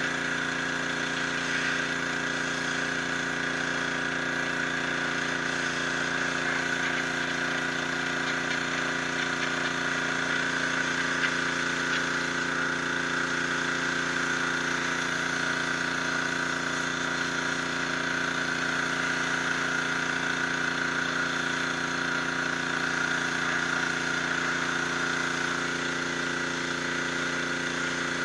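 Hot-water high-pressure washer running steadily: an even machine drone with several steady tones under the hiss of the water jet spraying against the stone.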